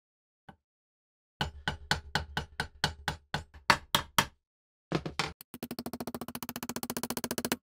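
Ball-peen hammer tapping on the end of a steel hinge pin set on a steel block, peening it over: a run of sharp light taps at about five a second. Near the end, a faster tapping of about a dozen strikes a second with a steady hum under it.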